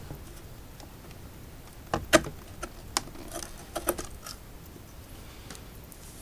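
Small loose metal parts clinking as they come out of an electric unicycle's casing and are handled: a cluster of sharp clicks and clinks from about two to four seconds in.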